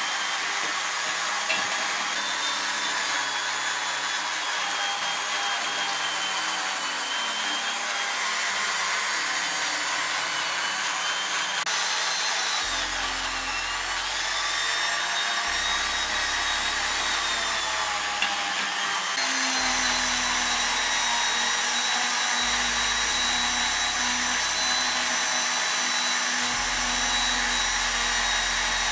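Small electric rotary tool spinning at high speed with an abrasive point against a metal vase, a steady high whine over grinding hiss. The whine drops in pitch briefly about halfway through as the bit is pressed in, then recovers.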